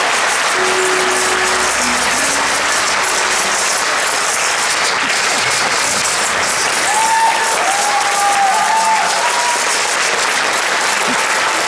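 Audience applauding steadily in a theatre, with music playing underneath.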